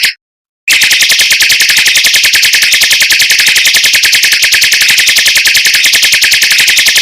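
Mockingbird singing a fast, high-pitched rolling trill of about a dozen even notes a second. It breaks off briefly just after the start, then runs on unbroken.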